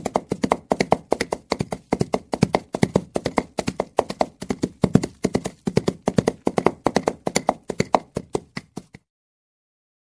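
Horse hooves clip-clopping in a quick, steady rhythm of sharp knocks, several a second, stopping about nine seconds in.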